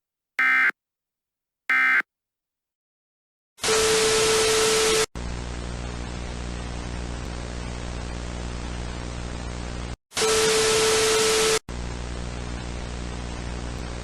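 The last two bursts of an Emergency Alert System end-of-message data signal: short buzzy electronic chirps about a second apart. After a pause of about two seconds, TV static takes over: two loud blasts of hiss with a steady tone in them, each about a second and a half long, with quieter buzzing static between and after.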